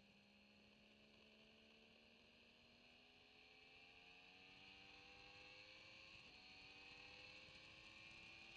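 Motorcycle engine heard very faintly and muffled, pulling hard with its pitch rising slowly, with a brief break about six seconds in like a gear change, over a steady hiss.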